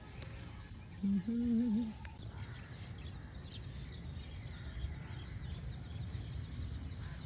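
Outdoor garden ambience: a steady low background noise with many faint, quick bird chirps through the second part, and a short voice sound about a second in.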